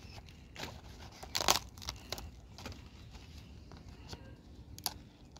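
Crisp outer leaves of a freshly cut cabbage crackling and snapping as the head is handled, in a handful of short sharp crackles, the loudest about a second and a half in.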